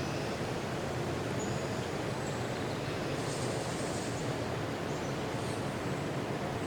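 Outdoor nature ambience: a steady, even rushing noise, with a few faint short high bird chirps scattered through it.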